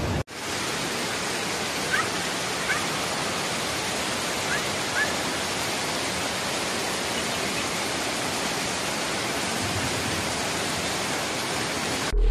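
Steady rush of fast-flowing floodwater. A few short, faint chirps come through about two and five seconds in.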